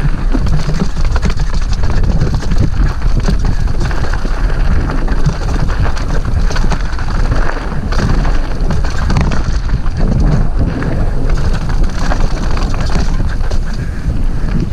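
Mountain bike riding fast down rocky, gravelly singletrack: tyres rolling and crunching over stones and the bike rattling with frequent small knocks, under heavy wind rumble on the camera microphone.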